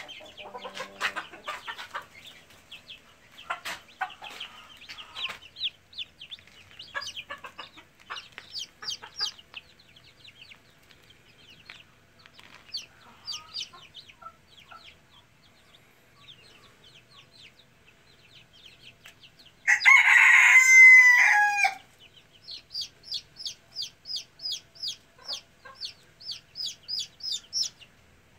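Young chickens and chicks peeping and clucking, with one loud, raspy crow from a young cockerel lasting about two seconds a little past the middle, then a run of high peeps at about three a second.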